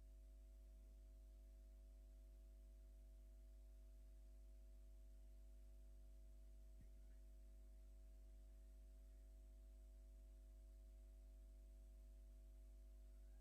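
Near silence, with only a steady low electrical hum.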